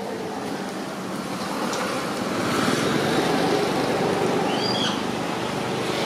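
Street traffic noise: a vehicle passing close by, swelling from about two seconds in and easing off after about four seconds. A short high chirp comes near the end.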